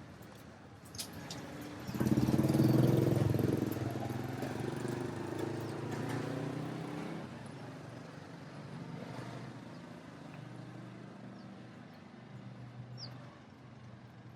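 A motor vehicle engine passing close by, starting loud about two seconds in and fading away over the next few seconds, over steady street background noise.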